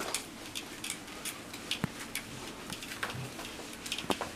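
Faint, irregular small clicks and ticks, about three a second, over quiet room tone.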